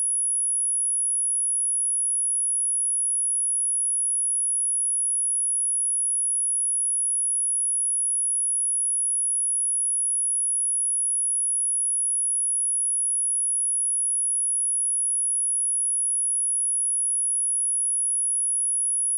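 Steady, unbroken high-pitched 10292 Hz sine-wave test tone, one pure tone held at a constant level.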